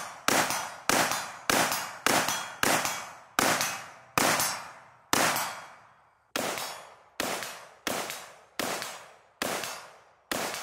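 IWI Tavor X95 bullpup rifle in 5.56 fired shot after shot at a steady, rapid pace, about one shot every two-thirds of a second, each shot trailing off in an echo. There is a longer pause about five seconds in, and the shots that follow come a little slower and quieter.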